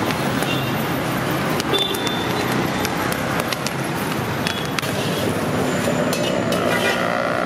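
Scrape and rattle of hot sand and corn being stirred in an iron pan with a perforated metal scoop, with scattered sharp clicks, over steady street traffic noise. A car horn sounds near the end.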